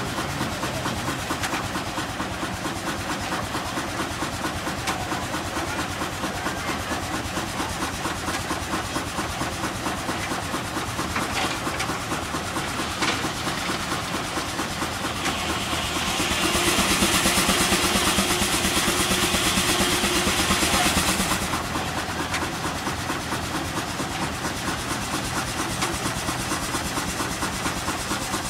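Steam traction engine running on the belt, its exhaust chuffing in a quick, steady rhythm. About halfway through, a louder hissing rush of noise comes in for about five seconds, then cuts off.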